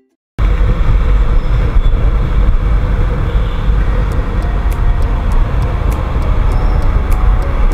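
Riding a Honda Activa scooter in traffic: a loud, steady rumble of wind buffeting the microphone mixed with the scooter's running and road noise. It cuts in abruptly after a split second of silence.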